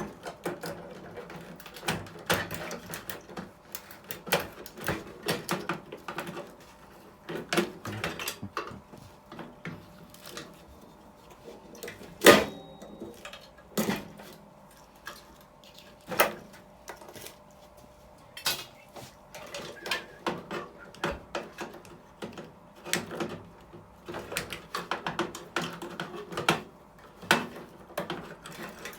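Wire connectors being pulled off terminals inside a microwave oven during dismantling: irregular clicks, taps and knocks of metal and plastic parts, with one louder knock about twelve seconds in.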